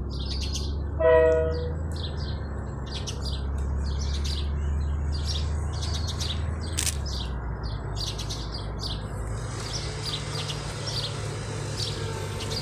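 Birds chirping throughout over a steady low rumble, with one short blast of a KiwiRail DL class diesel locomotive's horn about a second in as the train approaches.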